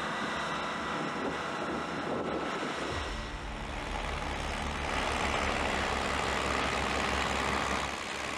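Diesel engines of John Deere four-wheel-drive tractors running under load while pulling plows. About three seconds in the sound changes to a closer, slightly louder engine with a steady low, pulsing throb.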